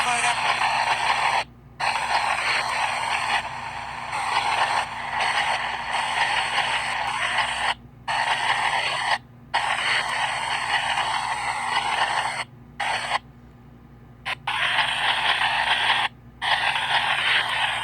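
PXB 07 spirit box sweeping radio stations: loud hissing static that drops out abruptly to silence several times as it jumps between stations. A faint steady low hum runs underneath.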